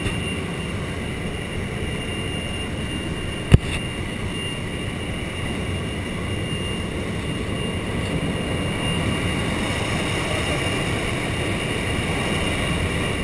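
Steady drone of a skydiving jump plane's engine and rushing air heard inside the cabin, with a constant high whine. A single sharp click about three and a half seconds in.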